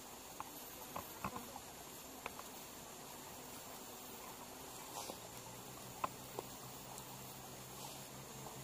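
Faint outdoor insect drone, a steady high buzz, with a few light clicks and taps scattered through. A faint low hum comes in about halfway through.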